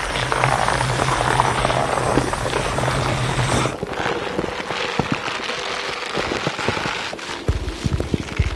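Layered sound-design texture: dense crackling over a steady low hum, which cuts off a little under four seconds in and gives way to scattered clicks and low thumps, thickening near the end.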